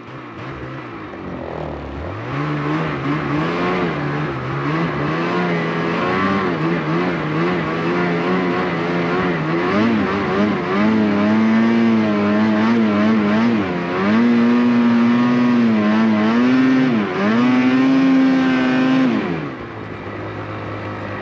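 A vehicle engine revving under load, its pitch climbing in steps, dipping briefly twice as the throttle eases, then falling back to a lower, quieter running sound near the end.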